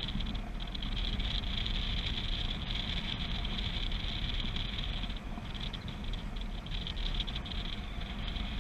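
Airflow rushing over the camera microphone of a paraglider in flight: a steady low rumble with a hiss on top that eases briefly about half a second in and again around five seconds in.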